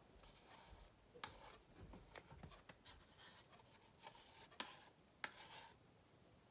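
Faint scraping of a stir stick in a small plastic cup of thinned acrylic paint, with a few light clicks and taps as cups are handled.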